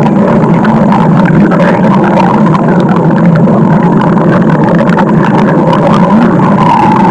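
Loud, unbroken stomach growling: a low, rumbling gurgle that keeps going without a pause.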